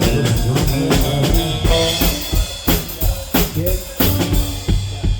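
Live band playing during a sound check: drum kit hits of kick, snare and rimshot with pitched bass and guitar notes. After about two seconds it thins to mostly separate drum strikes.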